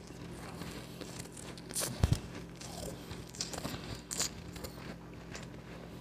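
Close-miked crunching and crackling of powdery ice being eaten, in short irregular crackles, with one dull thump about two seconds in.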